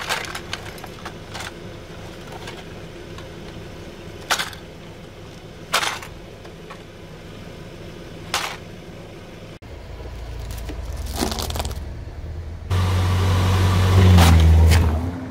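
A few sharp plastic clicks and knocks as a toy model car is handled on paving stones. Then a car engine runs and rises, and is held at high revs with the launch control engaged for about two seconds before dropping off near the end.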